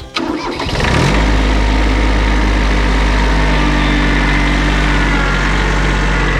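Kubota B7200 subcompact tractor's diesel engine revving up over about the first second, then running at a steady speed.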